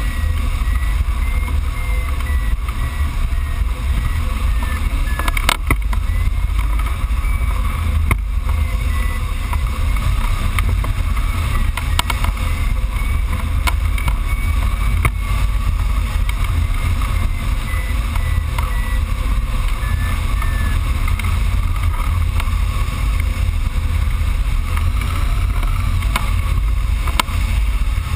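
Steady wind rushing over the microphone of a hang glider's camera in flight, a heavy low rumble. Under it a hang glider variometer beeps faintly and repeatedly, its pitch wavering up and down.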